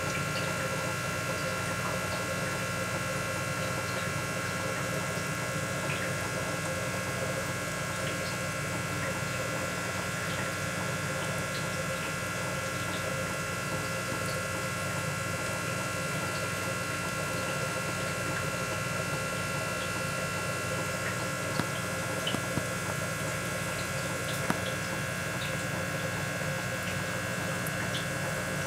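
Steady buzzing hum of a small electric motor, with several high whining tones held constant over it. A few short clicks sound about three quarters of the way through.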